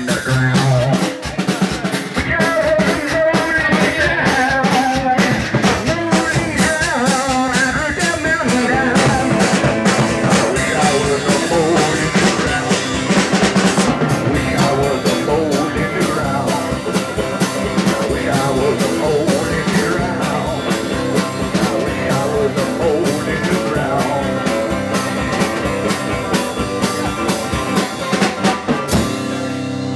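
Live rock band playing: a drum kit keeps a steady beat under electric guitar and singing. About a second before the end the drums stop, leaving a held low note ringing.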